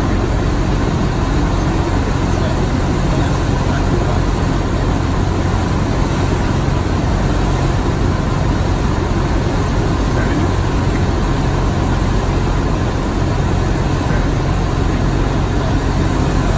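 Single-engine propeller plane's engine and propeller droning steadily, heard inside the cockpit with rushing air noise, on final approach to land.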